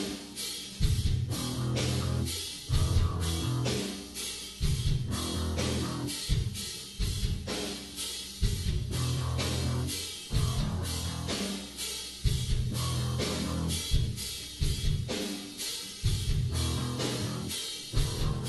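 Rock music with a steady drum beat, electric guitar and bass.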